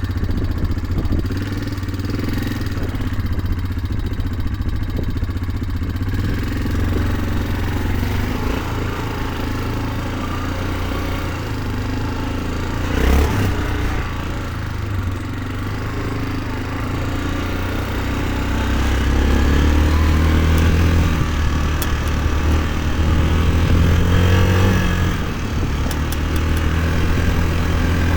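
2004 Yamaha Kodiak 450 ATV's single-cylinder four-stroke engine running steadily, its idle just turned up, with a single knock about halfway through. From about two-thirds of the way in the engine revs up and down as it is ridden.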